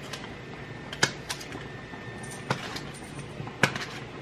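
A kitchen knife and fork clicking and tapping as pats of butter are cut and set onto vegetables in a foil roasting pan: a few sharp clicks about a second apart, over a faint steady high whine.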